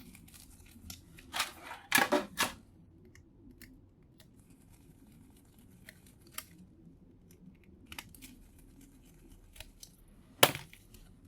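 Small screwdriver and hand tools working tiny screws out of a boombox circuit board: scattered clicks and scrapes of metal and plastic, a brief cluster of louder scraping about two seconds in and a sharp click near the end.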